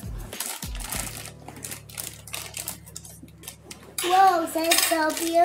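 Scissors snipping and a plastic bag of play sand crinkling as it is cut open, a string of small clicks and rustles. About four seconds in, a child's voice starts, drawn out and wavering.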